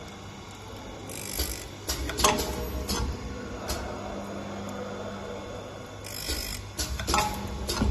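Automatic saw blade sharpening machine running: a steady motor hum with irregular clacks and knocks, and two brief hissy grinding passes, about a second in and about six seconds in.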